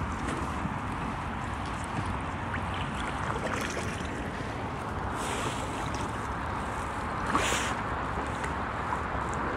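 Steady rush of water and wind noise on the microphone as a small boat moves along a river, with two brief louder swishes about five and seven seconds in.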